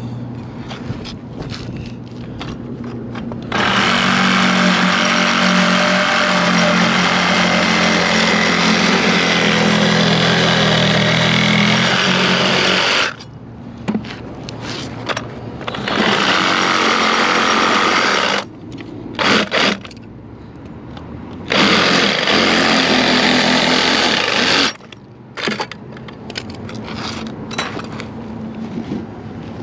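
A power tool run in three long bursts, the first about nine seconds long and the next two shorter, with a steady motor hum under a loud rasping noise. Between the bursts come scattered knocks and clatter.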